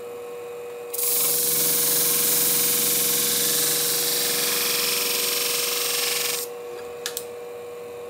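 Steel shear blade ground against the spinning disc of a Scimech Flathone sharpening machine while the edge is sharpened out to the tip. The hissing grind starts about a second in, runs about five seconds and cuts off abruptly, over the machine's steady hum. Two light clicks follow near the end.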